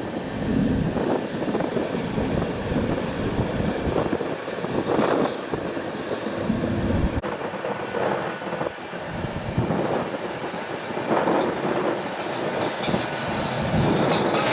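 Passenger train running on the rails, heard from an open coach window: a steady rumble of wheels on track with rhythmic surges, and a thin high wheel squeal as it rounds a curve. The sound changes abruptly about halfway through.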